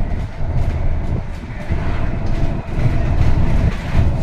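Bus in motion heard from inside the cabin: a steady low engine and road rumble, with a faint steady hum and light rattles over it.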